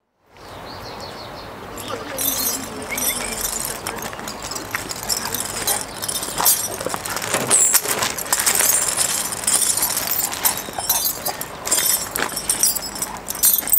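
A chained dog jumping and playing around a man: its metal chain rattles and jingles on and off, with scuffs and knocks of feet on the gravel road.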